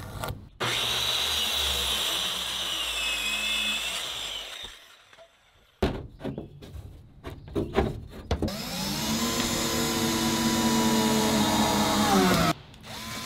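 Power tools working wood: a saw cuts with a high whine for about four seconds, then a few knocks, then a power tool's motor spins up, runs steady for about four seconds and winds down.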